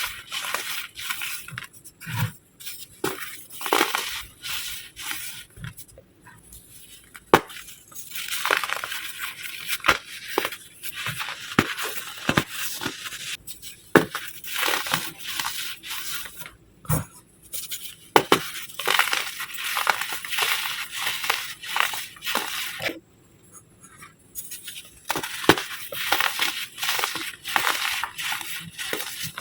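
Moulded block of baking soda being crushed, crumbling with dense, irregular crunching and crackling and sharp snaps, in bursts separated by short pauses.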